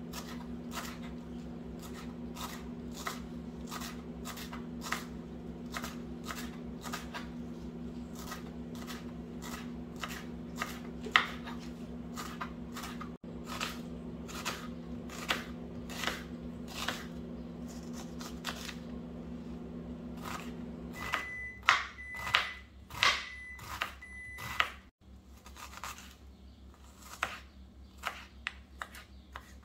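Kitchen knife chopping cilantro and then onion on a bamboo cutting board, a knock every half second or so, over the steady hum of a microwave oven running. About 21 seconds in the hum stops and the microwave gives a few short beeps, the sign that its cooking cycle has ended.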